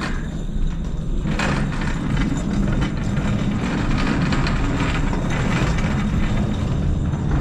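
A cart rolling along subway rails: a steady low rumble with rattling clatter that picks up about a second and a half in.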